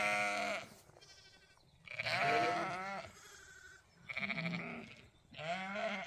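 Zwartbles lambs bleating, a string of quavering calls one after another, as lambs call for their ewes.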